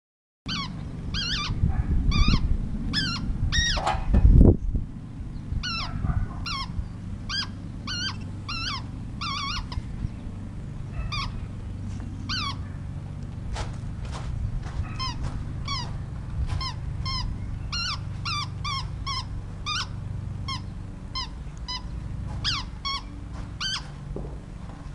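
A dog's squeaky toy ball squeaked over and over as a young cockapoo chomps on it: short squeaks that rise and fall in pitch, about one or two a second, with a few brief pauses. There is a loud thump about four seconds in.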